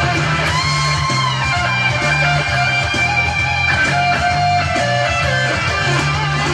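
Gretsch G2622T Streamliner center-block electric guitar played in a demo: lead notes, some held and some gliding in pitch, over a repeating bass line.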